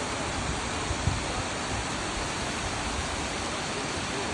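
Waterfall rushing steadily, a dense even hiss of falling water. A brief low thump comes about a second in.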